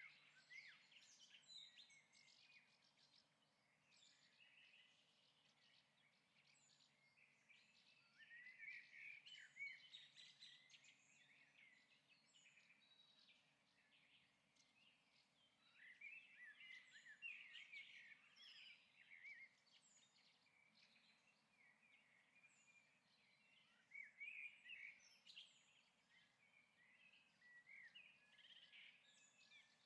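Faint bird chirping and song, coming in clusters of quick high chirps every several seconds.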